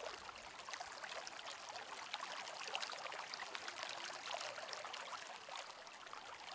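Faint, steady water ambience: a continuous trickling, splashing wash dotted with many small drop-like ticks.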